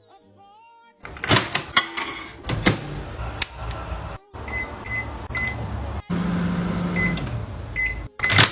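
Microwave oven in use: clicks and knocks of the door and handling, several short high keypad beeps, and a steady low hum while it runs, in short clipped pieces.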